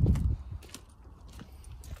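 A few soft footsteps as a person walks, following the tail end of a spoken word.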